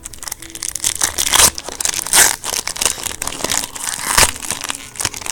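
Trading-card pack wrappers being torn open and crinkled in the hands: a dense run of crackling and rustling, with a few louder bursts.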